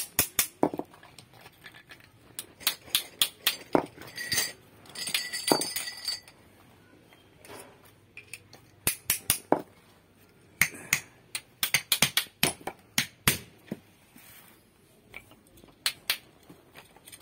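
Irregular sharp metallic clicks and knocks in clusters, with a ringing metallic scrape about four to six seconds in: parts of a 1/12 hp sewing machine motor being handled and fitted together around its armature.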